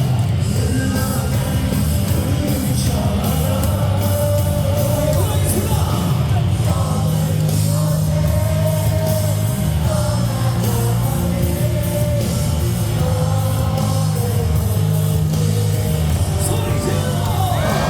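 Loud rock song with a singing voice, played over a ballpark's public-address loudspeakers.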